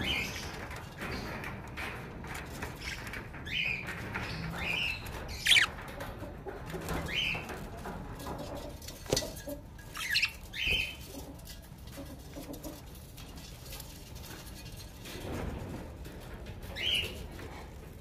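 Budgerigars giving several short, sharp chirps scattered through, the loudest a quick rising one about five and a half seconds in, over soft rustling, with a sharp tap about nine seconds in.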